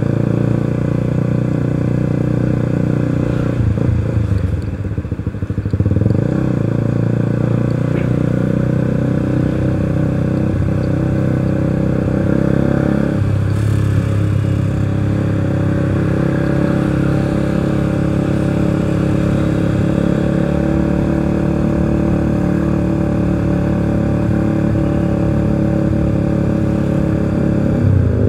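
Suzuki motorcycle's engine running steadily while riding in town traffic at around 30 km/h. The engine sound drops briefly about five seconds in, then picks up again.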